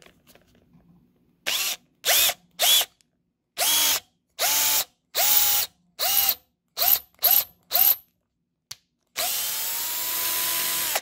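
Milwaukee cordless drill with a tapered #10 countersink bit drilling into a wooden board. The drill runs in about ten short trigger pulses, its motor whine climbing at each start. It then runs steadily for about two seconds near the end as the bit cuts the hole and countersink, and cuts off suddenly.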